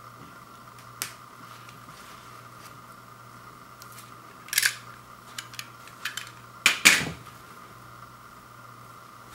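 Plastic shrink wrap on a vinyl LP jacket being slit with a box cutter and pulled open: a sharp click about a second in, then several short crinkling rustles of plastic, the loudest about seven seconds in. A faint steady hum runs underneath.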